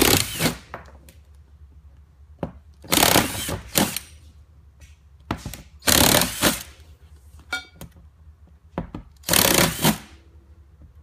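Power drill boring through a couple of thicknesses of plastic, run in several short bursts with pauses between.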